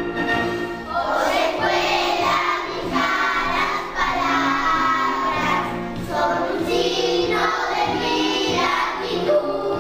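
A class of young children singing a school hymn together over an instrumental accompaniment, the voices coming in about a second in.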